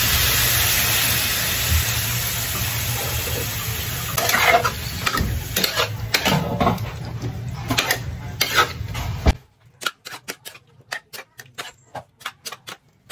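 Cubes of pork fat sizzling in a frying pan with soy sauce just poured in, while a spatula stirs and scrapes them. About nine seconds in the sizzle cuts off suddenly, leaving only the spatula's clicks and scrapes against the pan.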